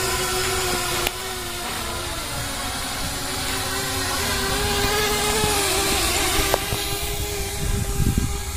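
7-inch FPV quadcopter's brushless motors and propellers whining, the pitch wavering up and down as the throttle changes.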